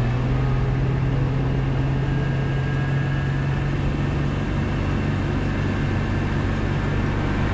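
Suzuki outboard motor running steadily at speed with the boat up on plane, a constant low hum over the rush of the wake.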